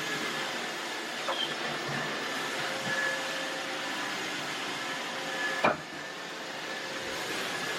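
iRobot Roomba 675 robot vacuum running: a steady whir with a faint whine. A light knock comes a little over a second in, and a sharp knock about two thirds of the way through.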